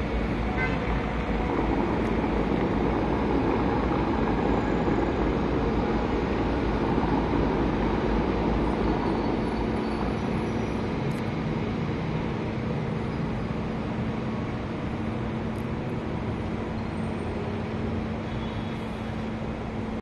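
Steady roar of city traffic noise, easing down slowly in the second half, with a faint steady hum joining partway through.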